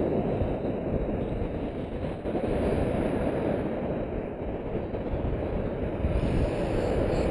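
Surf breaking close by and washing foam up around a camera set at the waterline: a dense, steady rushing noise that swells a little near the end.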